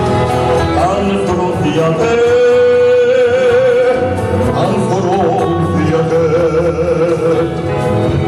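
A man singing long held notes with a wide vibrato over musical accompaniment.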